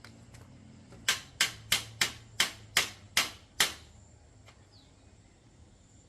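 A hammer striking metal in eight sharp blows, about three a second, each with a brief ring.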